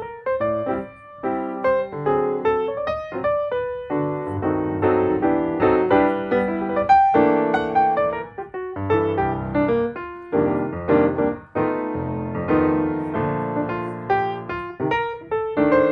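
Background piano music, a melody of many quick notes.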